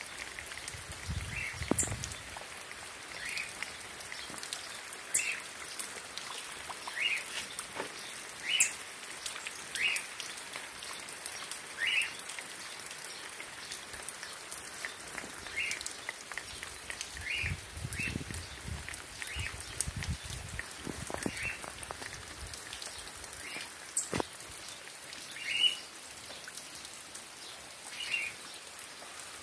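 Steady rain falling, with scattered drop ticks and a short high animal call repeating about every one to two seconds.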